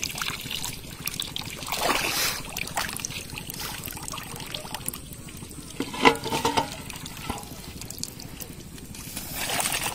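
Water trickling and splashing off a woven bamboo fish trap as it is lifted out of shallow water, with louder rushes of water about two seconds in and near the end. A cluster of sharp knocks comes about six seconds in.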